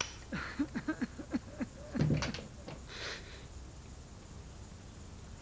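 A man sobbing: a run of short, choked sobs, a louder cry about two seconds in, then a sharp breath.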